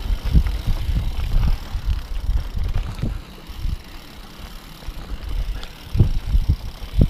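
Mountain bike ridden over rocky dirt singletrack: a low rumble of tyres and bike over the rough ground, with wind buffeting the microphone and irregular knocks over bumps. It calms briefly midway, then comes a couple of sharper jolts near the end.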